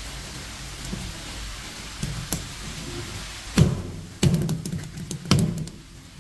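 A steady rush like running water, then three heavy thunks on a cutting board a little over half-way in, as fresh striped beakperch are handled for cleaning.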